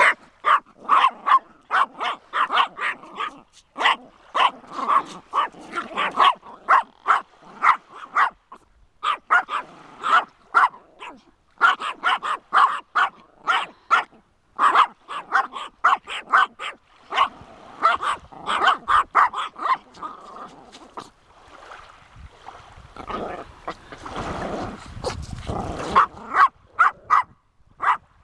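Yorkshire terrier barking frantically at a crayfish: rapid short barks, several a second, in runs broken by brief pauses. Near the end the barking thins out for a few seconds under a rushing noise.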